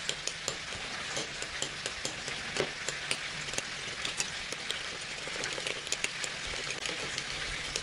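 Ketchup and mayonnaise being stirred in a small ceramic bowl, with many small clicks of the utensil against the bowl, over a steady sizzle of meat rolls frying in oil and butter in a pan.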